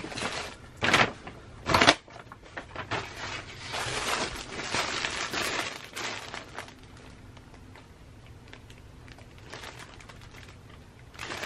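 Kraft paper mailer envelope being handled, rustling and crinkling, with two sharp loud crackles about a second apart near the start. The rustling dies away a little past halfway, leaving quiet room tone.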